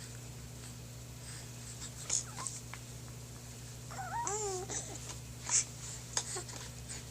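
A two-and-a-half-month-old baby cooing: a short sound about two seconds in, then a longer coo that rises and falls about four seconds in. A few sharp clicks, the loudest about five and a half seconds in, come over a steady low hum.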